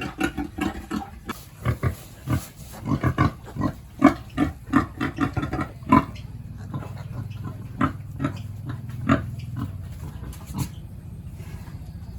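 Pigs grunting: many short grunts in quick runs, busiest in the first half and thinning out toward the end, over a steady low hum.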